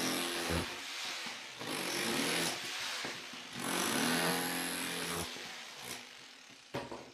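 Cordless Bosch GBH18V-20 SDS-plus rotary hammer in chisel mode, running in several runs of a second or so as it breaks up old ceramic tile and crumbling cement backerboard. A few sharp knocks come near the end.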